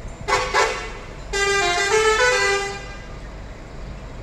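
Telolet musical horn on a Mercedes-Benz OH 1626 bus: two short toots, then a melodic run of changing notes lasting about a second and a half.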